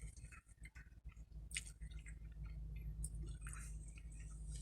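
Close-up mouth sounds of someone chewing spaghetti: wet, squishing eating noises with small clicks, over a low steady hum.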